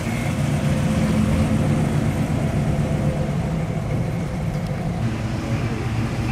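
Engine of a second-generation Chevrolet Camaro driving slowly past and away, a steady low-pitched exhaust note that grows louder about a second in.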